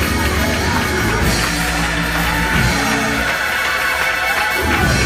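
Live church band playing a loud praise break, with guitar and drums under sustained chords.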